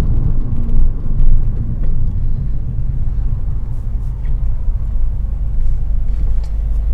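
2015+ Subaru WRX's turbocharged 2.0 L flat-four and Invidia Q300 cat-back exhaust, a steady low rumble heard from inside the cabin while driving gently on a still-warming engine, not yet on boost.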